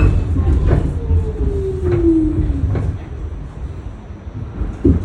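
R46 New York City subway train running with a steady low rumble and a few sharp clicks, a whine gliding down in pitch over about two seconds; the rumble grows quieter after about three seconds.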